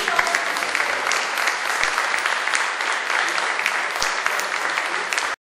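A roomful of seated people applauding, the clapping steady and then cut off abruptly near the end.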